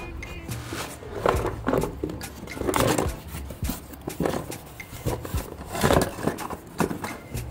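Cardboard toy box being handled and opened by hand, its flaps and paperboard scraping and rustling in a string of short bursts.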